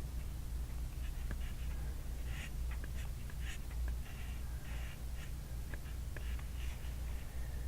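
Handwriting on a workbook page: short scratchy strokes with light taps in between, over a steady low hum.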